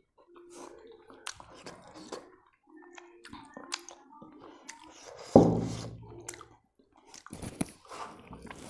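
Close-up chewing and wet mouth sounds of someone eating rice and soup by hand, with soft squishing as soup is poured over rice on a steel plate and mixed in with the fingers. One louder knock about five seconds in.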